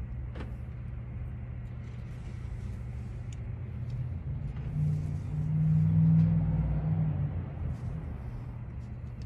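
A steady low engine-like rumble that swells louder between about five and seven seconds in, then settles back, with a few faint clicks.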